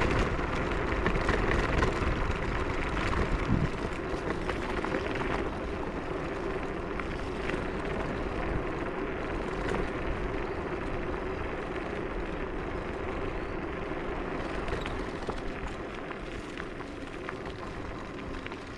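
Riding a Techlife X7S scooter: wind rushing over the GoPro's microphone with tyre rumble and a steady low hum, easing off gradually toward the end.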